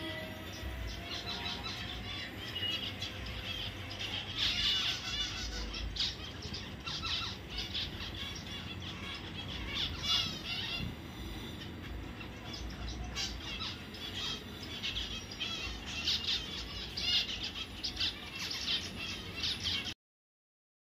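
Zebra finches chirping: a steady run of short, high calls, some in quick clusters. The sound cuts off abruptly near the end.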